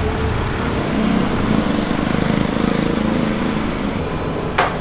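A motor vehicle's engine running close by over steady street traffic noise, with a single sharp click near the end.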